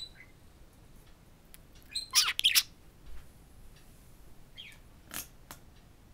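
Budgerigar chirping in short, wavering bursts. The loudest is a quick cluster of chirps about two seconds in, and a shorter one comes near the end, with a few faint clicks between.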